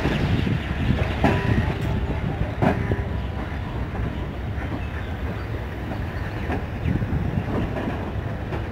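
Passenger coaches of a departing train rolling past, with a steady low rumble and wheels clicking and knocking over rail joints. The knocks come irregularly, the clearest ones in the first few seconds.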